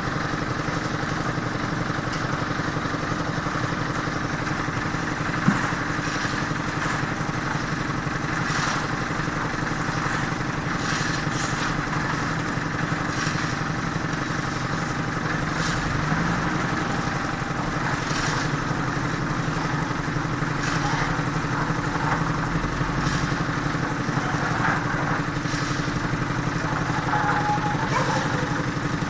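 Engine of road-construction machinery running steadily, with scattered clanks and knocks and one sharp bang about five seconds in.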